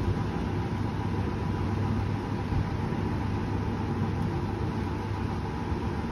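Storm wind buffeting the microphone as a steady low rumble, over a faint steady hum.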